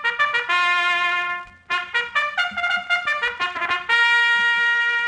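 Solo trumpet playing a fanfare as a radio show's opening theme: quick tongued notes broken by a long held note about half a second in and another held note near the end, heard through an old 1946 disc recording.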